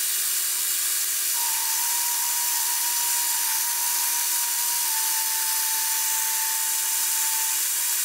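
Vernon metal lathe running under power, turning a cut on a metal bar as the carriage feeds the tool toward the chuck: a steady machine hum and hiss. A thin steady tone joins about a second and a half in, drops slightly in pitch midway and stops shortly before the end.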